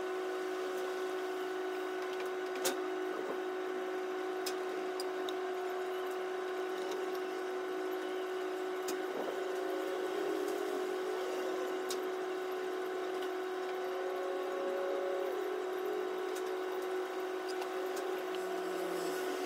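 A steady electrical or mechanical hum with a constant pitch, and a few light clicks scattered through it, the sharpest one a few seconds in.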